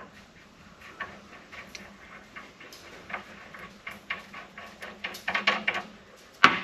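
Small metal clicks and scrapes as parts are worked off the threaded end of a tractor hydraulic cylinder rod by hand, with a cluster of knocks just after the middle and one sharper click near the end.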